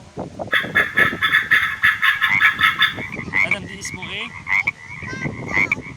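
Ducks quacking: a fast run of rasping quacks for the first half, then shorter separate calls.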